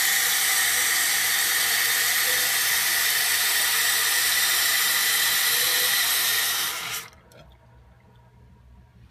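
Toilet tank fill valve refilling the tank, a loud steady hiss of water with a high whistle in it. About seven seconds in it shuts off abruptly as the tank reaches its fill level.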